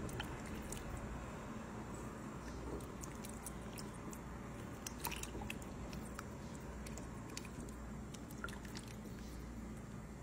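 A spatula stirring a pot of rice, potatoes and pork chops in watery broth: wet squishing and sloshing with light scattered clicks of the spatula against the pot, most of them about halfway through.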